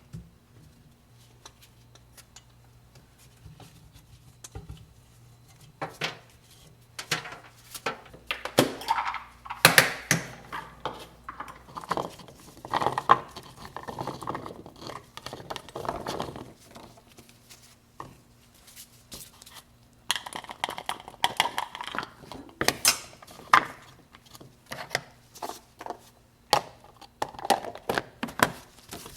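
Kitchen handling sounds: scattered clinks and knocks of dishes, containers and utensils, busier in two stretches, over a faint steady low hum.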